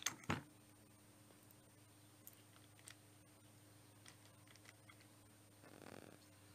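Small steel locker parts, the spring-loaded retaining pins and springs, being handled and fitted into a differential carrier: two sharp metal clicks at the start, then near silence with a few faint ticks and a brief soft rubbing sound near the end.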